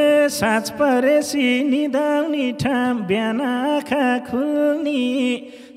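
One singer's voice singing a verse of Nepali dohori folk song, syllable after syllable on a nearly level pitch, like a chant.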